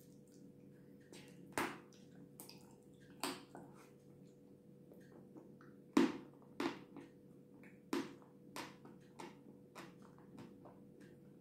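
Close-up mouth sounds of a person chewing soft cream-covered cake: irregular wet smacks and clicks, the loudest about one and a half, six and eight seconds in.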